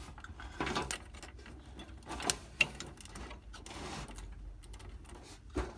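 Scattered sharp clicks and knocks of hard plastic and metal desktop PC parts being handled and fitted by hand, with light rustling in between; the loudest knocks come a little after two seconds in and near the end.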